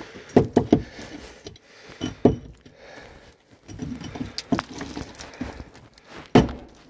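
A bolted-down metal cover being tugged and pried at by hand, giving a few sharp knocks and clanks with scraping and rustling between them. The cover holds fast because it is bolted down.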